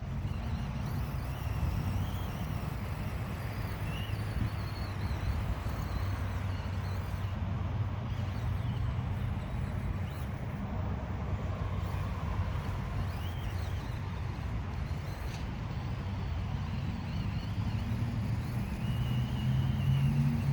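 Steady low rumble of a motor vehicle engine, with faint high whines that rise and fall now and then.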